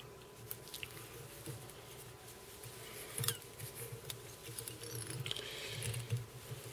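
Faint handling noises at a fly-tying vise: small clicks and rustles of fingers, thread and a tying tool at the fly's head, with one sharper click about three seconds in and a soft scratchy rustle near the end, over a low hum.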